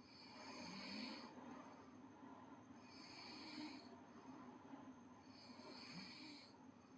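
A girl snoring faintly in her sleep: three slow, soft breaths, each about a second long, coming roughly every two and a half seconds.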